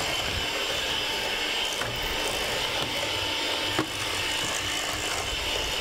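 Electric hand mixer running steadily, its beaters working cookie batter in a stainless steel bowl. A couple of brief clicks come through, about two and four seconds in.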